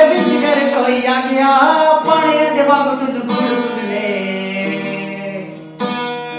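A man singing a song while strumming a steel-string acoustic guitar, with a long held, wavering note in the second half.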